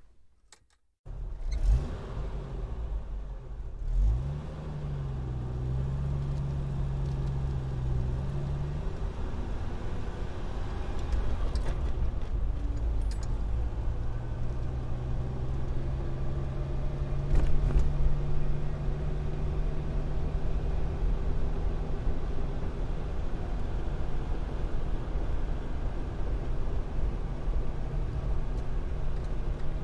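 Car driving at road speed: a steady low engine hum with road rumble, cutting in suddenly about a second in. The engine note climbs briefly around four seconds in, then holds steady.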